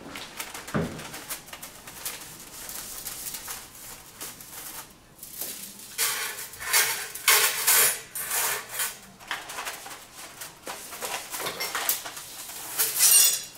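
Handfuls of thin aluminum TIG filler rods rattling and clinking against each other and a steel welding table as they are pulled from their boxes and laid down, in bursts of light metallic clatter, busiest in the middle and again near the end.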